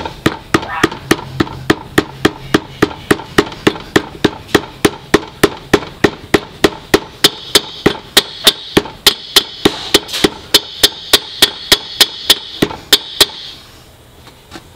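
Hammer blows driving a new pinion seal into a Subaru R180 differential's pinion housing: steady, even knocks about three a second, taking on a metallic ring in the second half, and stopping shortly before the end.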